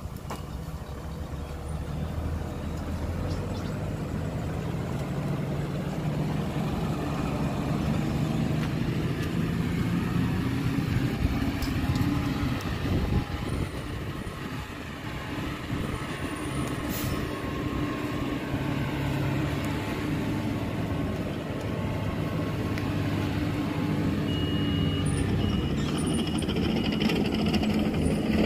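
Heavy diesel engines of dump trucks and a bulldozer running, the engine note rising and falling as they work, with a couple of short sharp clicks.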